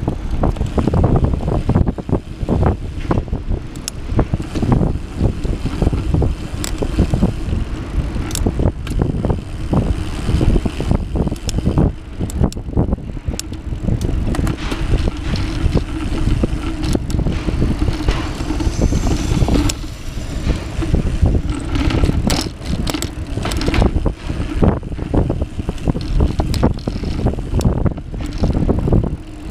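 Wind rumble on the camera's microphone, with constant rattling and knocking from the ride over a concrete footpath.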